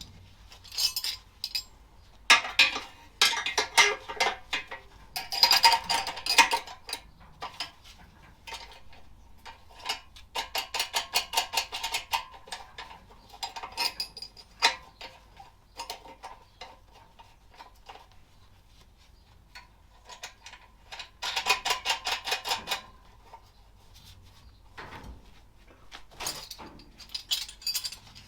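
Ratchet spanner clicking in quick runs, over and over, as the nuts on new exhaust clamps are tightened down. Light metal clinks of the clamp hardware fall in between.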